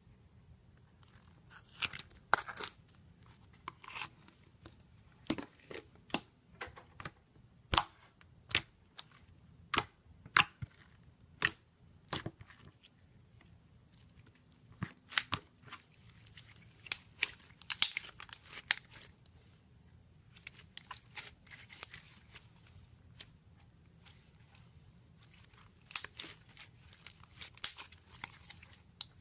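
Slime being worked by hand, giving sharp pops and crackles: scattered single snaps in the first half and denser crackling runs later on.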